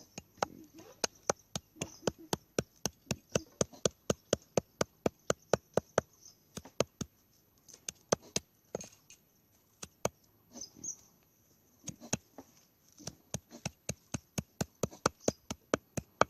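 Knife chopping on a wooden board, mincing meat for laab: steady strokes about four a second, stopping for a few seconds midway and then starting again.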